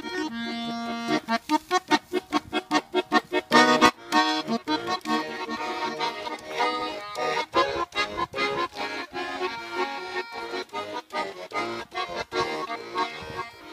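Button accordion playing a fast instrumental passage of quick, separate notes and chords, with no singing.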